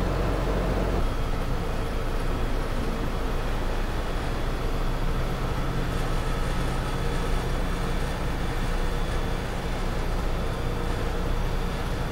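Steady engine and road noise inside the cabin of a moving AC sleeper coach bus at highway speed. The deep low rumble lessens about a second in.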